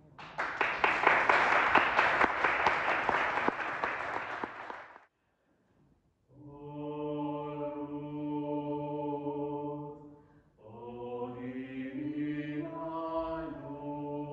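Audience applauding for about five seconds. After a short pause, the next carol begins with long sustained chords.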